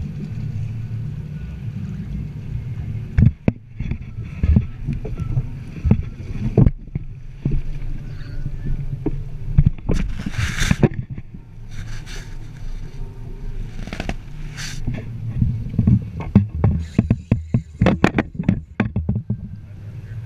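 Knocks and clatter of fishing tackle being handled on a boat, over a steady low rumble, with a few short bursts of hiss.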